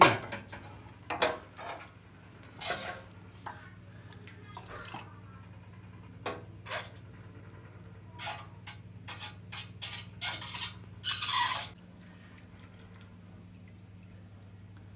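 Goose roasting juices being collected with a bulb baster and a glass measuring jug: scattered clinks and knocks of glass and metal pans with liquid splashing and dripping, and a longer noisy splash of juice about eleven seconds in.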